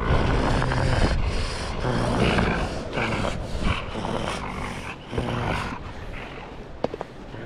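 A dog growling and grumbling in several short low bouts.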